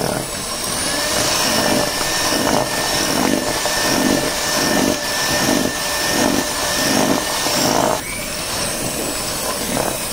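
Electric hand mixer running, its twin beaters churning stiff, crumbly cookie dough with chopped nuts, with a steady motor whine and a regular swell about once every three-quarters of a second. The note of the motor changes about eight seconds in.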